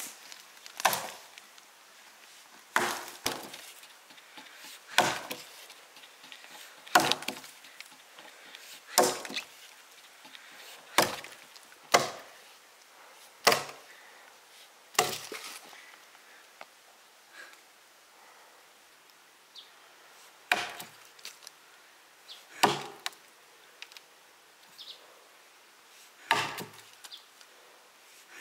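Chopping blows striking wood, about one sharp strike every two seconds, a dozen or so in all, with a pause of a few seconds past the middle.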